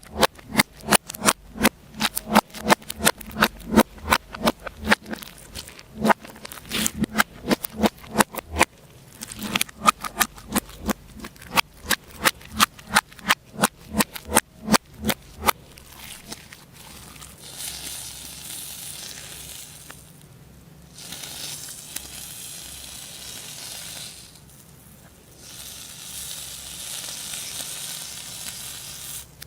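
Slime being squished and worked by hand, close to the microphone: rapid wet pops and clicks, several a second, for about the first half, then a steadier crackling hiss in three stretches with two short breaks.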